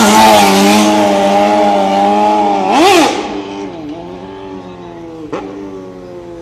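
Motorcycle engine running hard as it wheelies past close by, with a quick rev up and down about three seconds in, then fading as it rides away.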